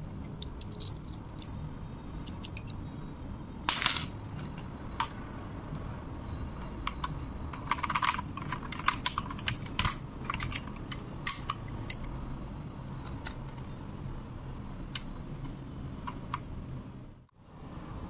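Irregular plastic clicks and clacks of keycaps being pulled off and pressed down onto the TTC Speed Silver linear switches of an AKKO 3098S mechanical keyboard, with quick bunches of clicks about four seconds in and again around eight to ten seconds. A steady low hum runs underneath.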